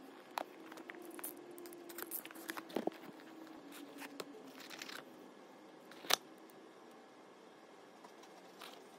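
Cardboard packaging of a DJI OM 4 SE gimbal being handled and opened: paper and card rustling and scraping with scattered soft clicks, and one sharper click about six seconds in as the gimbal is lifted out.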